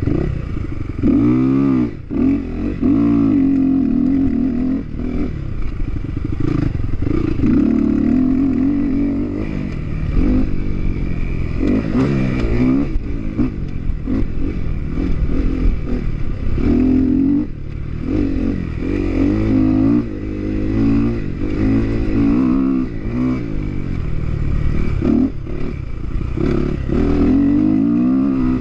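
Dirt bike engine under hard riding, its pitch rising and falling again and again as the rider accelerates, shifts and rolls off over rough terrain.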